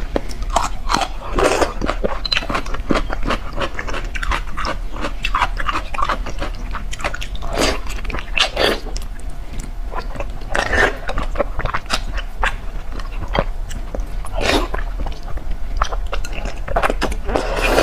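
Close-miked mouth sounds of eating soft, fatty braised pork intestinal fat: wet chewing and biting, with many short, irregular smacks and sucks.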